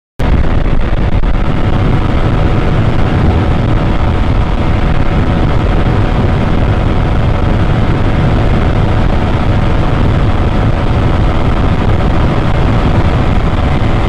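Honda 150 cc single-cylinder underbone motorcycle engine running flat out at a steady top speed, about 138 km/h in sixth gear, with heavy wind rush over the handlebar microphone. It cuts in abruptly just after the start and holds an even pitch.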